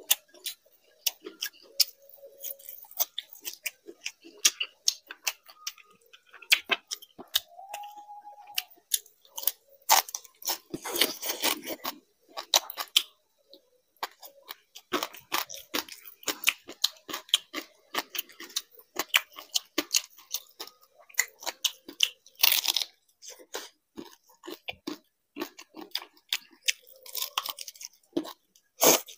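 Close-miked eating of fried rice and fried fish by hand: wet chewing and lip-smacking clicks, with a few louder crunchy bursts.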